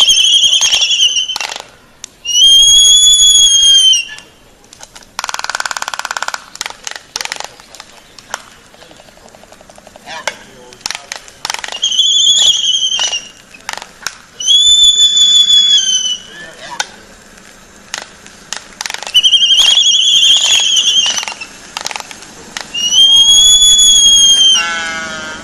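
Two birds calling back and forth: six long, loud, slightly arching whistled calls of about a second and a half each, with short clicks between them and a brief harsh rasp about five seconds in.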